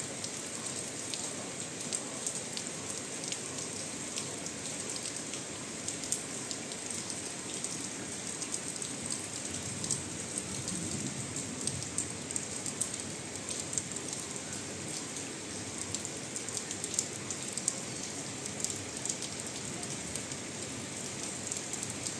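Steady heavy rain falling, with a dense patter of individual drops ticking on nearby surfaces.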